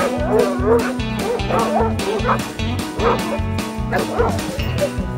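Hog-hunting dogs barking, yipping and whining in quick, wavering calls as they hold a boar hog. Background music with a steady beat plays underneath.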